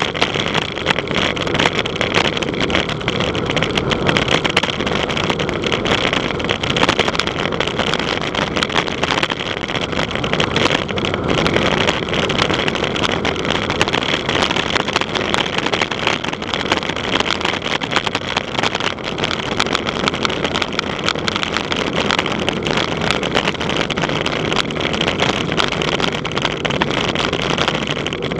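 Wind buffeting the microphone of a camera riding on a bicycle at speed: a steady, loud rushing noise with constant fine flutter, typical of a fast mountain descent.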